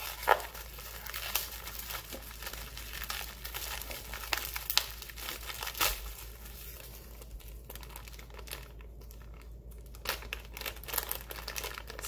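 Bubble wrap and a clear plastic bag crinkling as they are handled and pulled open by hand, in quick irregular crackles, with a quieter, sparser stretch about seven seconds in.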